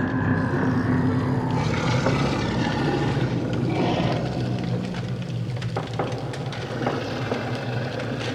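Horror sound-design ambience: a steady, low, engine-like drone with a few faint clicks.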